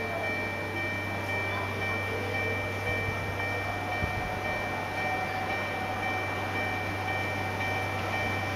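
Railway level-crossing warning bell ringing steadily, over a low steady hum.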